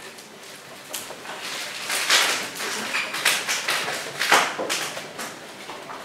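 A paintbrush rubbing oil paint onto canvas: a run of short, rough strokes starting about a second in, loudest around two and four seconds in.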